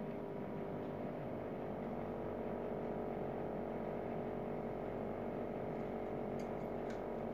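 A steady mechanical hum made of several held tones, with a couple of faint clicks of a steel spatula against an aluminium pressure cooker about six and a half seconds in as mutton is stirred.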